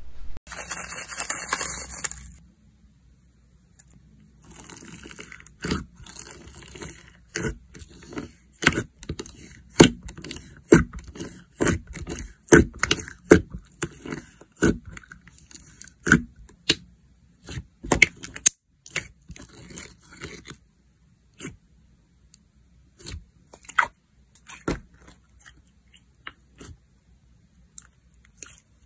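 Slime being played with by hand: a white, icy-textured slime crackles densely for about two seconds. After a short pause, a glossy red jelly slime is pressed and squeezed, giving a quick run of sharp sticky clicks and pops over soft squishing that thins to scattered pops in the last several seconds.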